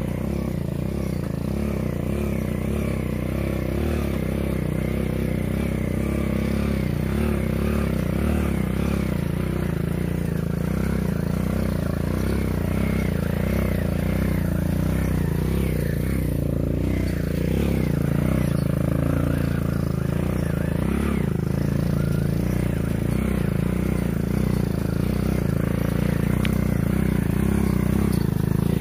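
Small motorcycle engine of a homemade four-wheel ATV running steadily, its speed wavering up and down.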